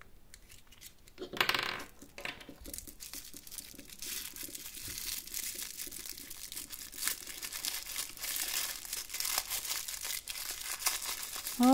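A small pink-printed toy wrapper being crinkled and pulled apart by hand, a dense crackly rustle with many small clicks. There is a louder rustle about a second and a half in.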